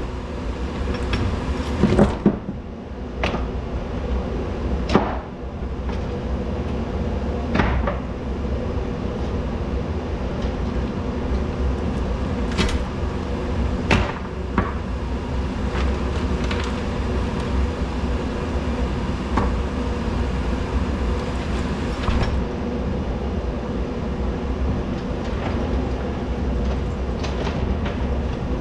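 A steady mechanical hum with scattered sharp knocks and clinks, about a dozen of them, the loudest in the first fifteen seconds.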